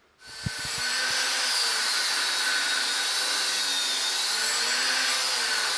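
Angle grinder cutting into a steel axe billet. The motor spins up over the first second, then gives a steady, loud, high whine as the wheel cuts the metal.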